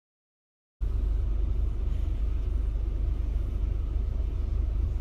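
Digital silence, then about a second in a steady low rumble starts: road and engine noise heard inside a moving car's cabin.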